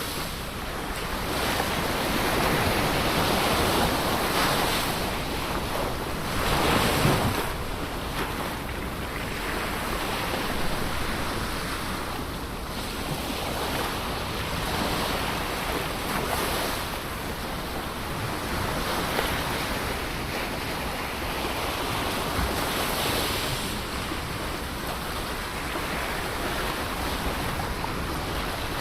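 Ocean waves breaking and washing on a shore, a continuous surf that swells and eases as each wave comes in, with the loudest break about seven seconds in.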